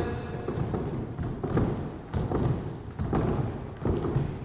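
Sneakers thudding on a wooden squash-court floor as several people do jump lunges, landing about once a second. A high, thin tone comes and goes in several stretches between the landings.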